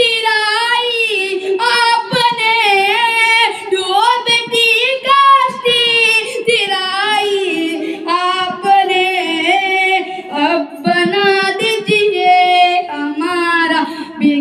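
A boy singing an Urdu devotional salam solo, in a high voice with long, wavering notes that glide between pitches.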